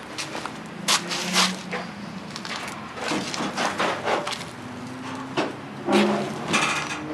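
Irregular knocks and crunches, several in quick clusters, over a faint steady low hum.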